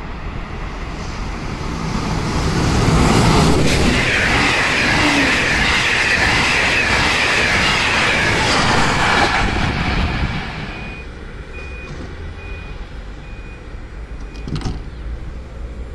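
A train passing through the station: the noise builds over a couple of seconds, stays loud with a strong high hiss or squeal for about six seconds, then fades. A row of short high beeps follows, with a sharp clunk near the end.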